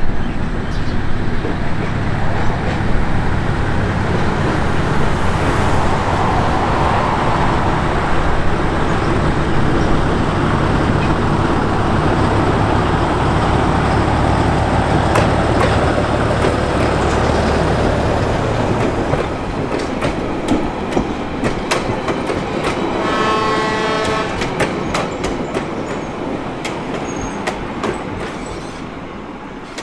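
Small diesel shunting locomotive running past with a steady low engine rumble while hauling a passenger carriage. After the engine fades, the carriage wheels click over the rail joints, with a short horn-like toot partway through the clicking before the sound dies away.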